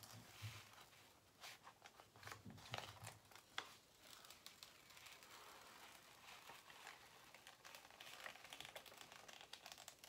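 Faint crinkling and rustling of paper wrapping as a rolled diamond-painting canvas is pulled out and flattened by hand, with scattered small ticks and a couple of soft bumps against the table.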